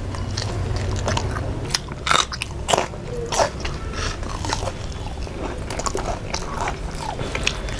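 Close-miked crunching bites and chewing of crisp fried fish eaten by hand: many short, sharp crunches, over a low steady hum.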